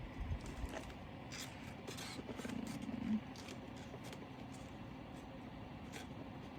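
Hands handling small plastic bags of diamond painting drills: scattered light rustles and clicks, with a couple of soft bumps at the start, over a steady low hum.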